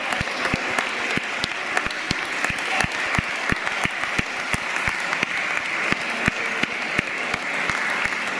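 Sustained applause from a group of choir singers, with sharp individual claps standing out several times a second.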